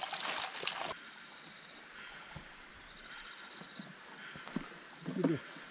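Rainforest insects making a steady high-pitched drone. In the first second a louder rush of running water is heard, which cuts off abruptly, and near the end there is a short vocal sound.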